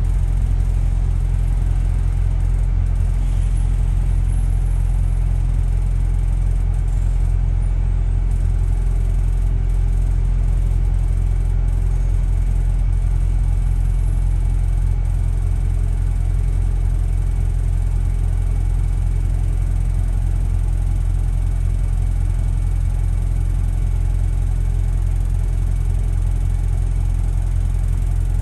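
Steady low rumble of a double-decker bus in motion, engine and road noise heard from inside on the upper deck.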